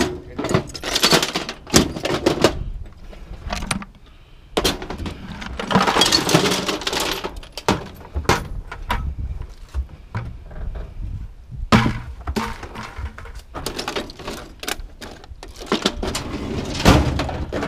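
Small pieces of scrap clattering and knocking as they are handled, dropped and tipped from a plastic bucket into a box of junk, in a string of sharp knocks with a longer run of rattling about five to seven seconds in.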